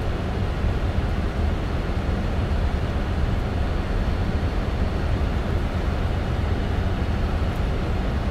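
Steady flight-deck noise of a Boeing 747-400 on final approach: a low rumble of airflow and engines under an even hiss, unchanging throughout.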